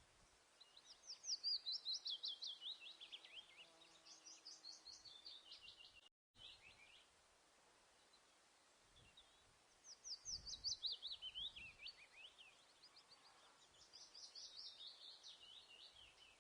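A songbird singing in bouts: rapid series of high chirping notes that slide down in pitch over about two seconds, repeated four times in two pairs. The sound cuts out briefly near the middle.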